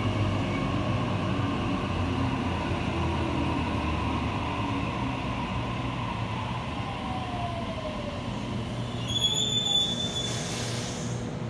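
Sydney Trains Waratah A-set electric train pulling slowly into the platform, its traction motors whining in a tone that falls as it slows. About nine seconds in comes a brief high-pitched squeal, then a short hiss of air as it comes to a stand.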